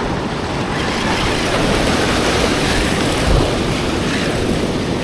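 Steady wind rushing over the microphone, with surf washing on the beach.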